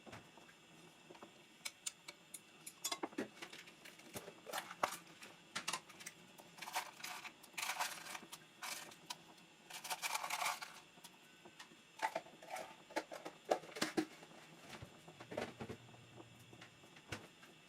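Kitchen handling sounds: scattered clicks and taps of utensils and dishes, with two short scraping or rustling stretches, one about seven seconds in and one about ten seconds in.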